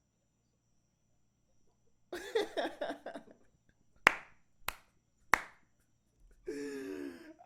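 Three sharp handclaps about two-thirds of a second apart, after a short burst of voice. A drawn-out voice starts near the end.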